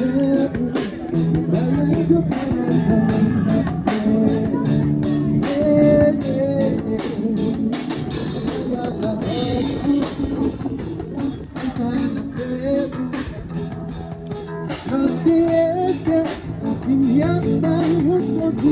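Music with a steady drum beat, guitar and a singing voice.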